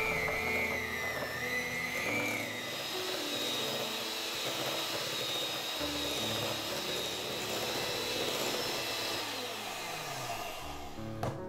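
Electric hand mixer beating room-temperature butter until fluffy: a steady motor whine.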